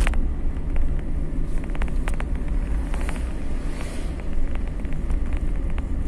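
Car on the move, heard from inside the cabin: a steady low road-and-engine rumble, with a few light clicks and rattles scattered through it.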